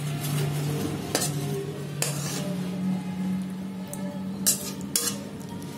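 A metal spoon scraping cooked vegetable-and-fish curry out of a metal kadai into a steel plate, with several separate scrapes and clinks of metal on metal.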